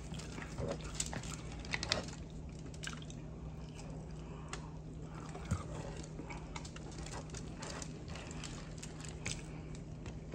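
Faint, scattered clicks and small wet sounds of fingers picking through mussel shells in butter sauce on foil.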